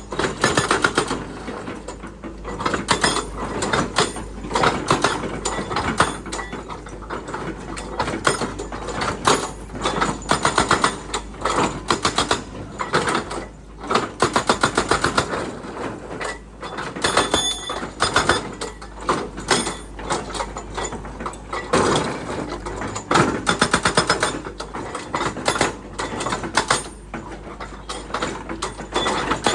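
Excavator clattering and clanking in rapid, irregular bursts of metallic rattling.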